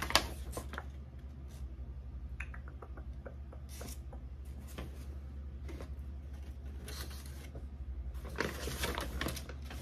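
A paper packing slip being picked up, handled and rustled, with a sharp knock right at the start and short bursts of rustling, the longest near the end. A steady low hum runs underneath.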